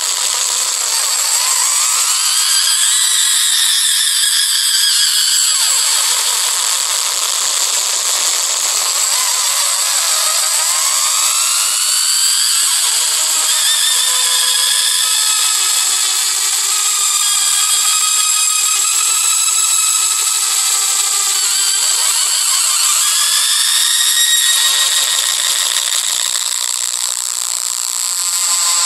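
Experimental noise composition: a dense, shrill wash of high-pitched tones with many overlapping glides sweeping up and down, and almost nothing in the bass.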